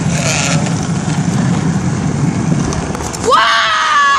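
Low rumble of wind on the phone's microphone while riding a bicycle. About three seconds in, a loud, high-pitched yelp of "Wah!" sweeps up and holds, as the phone nearly slips from his fingers.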